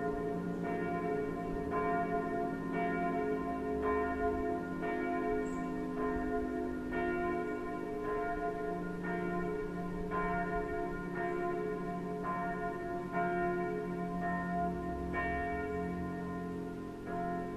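Bells ringing in a steady peal, struck in turn about every half to three-quarters of a second, each stroke ringing on under the next.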